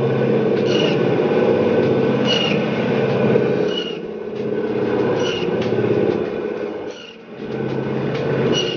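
Butcher's meat band saw running steadily, its blade cutting through lamb bone as a rack is pushed through into chops. A short high rasp recurs about every one and a half seconds, and the sound drops briefly near the end.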